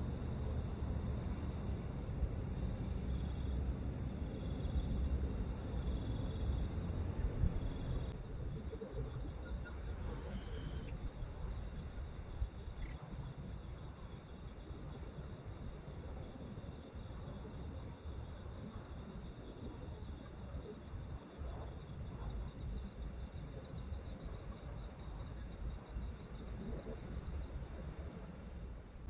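Night insects: crickets chirping in quick pulsing trains over a steady, high-pitched insect drone, above a low rumbling background.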